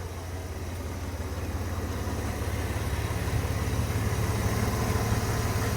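A car engine idling steadily, growing gradually louder: the running donor car for a jump-start.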